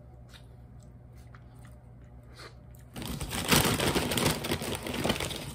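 Faint chewing clicks, then about three seconds in a loud, dense crinkling of a plastic chip bag being grabbed and handled.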